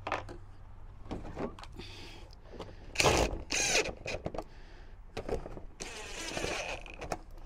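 Cordless drill-driver driving small screws into a plastic truck trim piece in several short whirring bursts, the longest about six seconds in, with small clicks between them.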